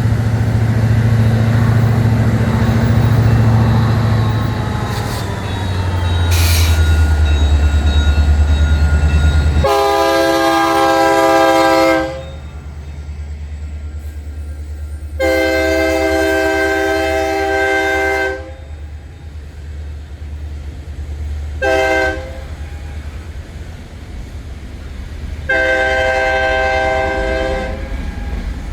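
Freight diesel locomotives working past with a deep engine rumble, then a locomotive's air horn with several chimes sounds the grade-crossing signal: two long blasts, one short and one long.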